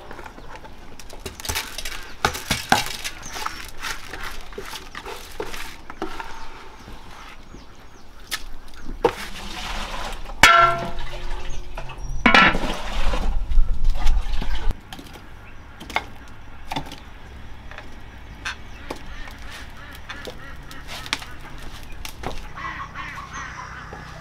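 A goose honks loudly a few times near the middle, the calls sliding down in pitch. Around it are small clicks and knocks of cooking as rice is tipped into a pot of broth and the pot is covered.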